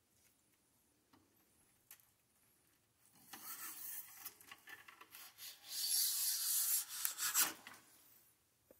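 Bronze bore brush on a cleaning rod scrubbing through an AR-15 barrel. It is a rasping scrape that starts about three seconds in, grows louder, and stops after about four and a half seconds. A few faint clicks come before it.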